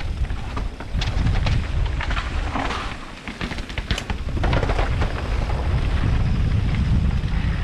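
Wind buffeting the microphone of a camera mounted on an enduro mountain bike, a heavy uneven rumble, with many rattles and knocks from the bike riding over a rough, broken paved path.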